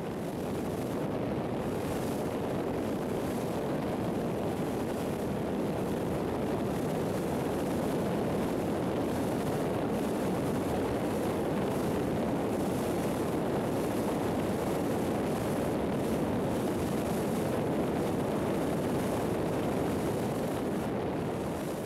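Steady rushing of sea water and wind at the bow of a large container ship under way.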